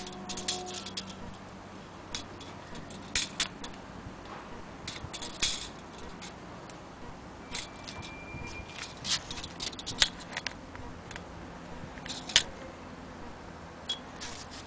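Handling noise: scattered, irregular sharp clicks and light rattles as a metal tape measure and an antique cast-iron hand-crank wheel on its wooden base are moved about.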